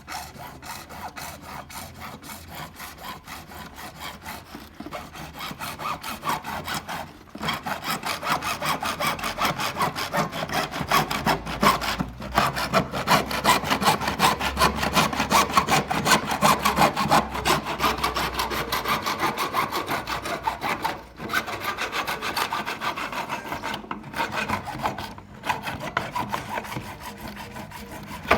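Hand saw cutting through a pipe in quick, regular back-and-forth strokes, louder from about a third of the way in, with a few brief pauses between runs of strokes.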